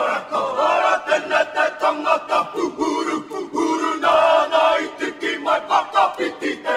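A group of men chanting and shouting in unison in a haka-style war chant, with sharp rhythmic beats running through it.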